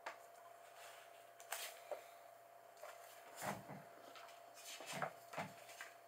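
Faint rustling and handling of bedding and a paperback book as someone in bed shifts and opens it: a handful of short scuffs and paper rustles, the strongest three to five seconds in, over a faint steady hum.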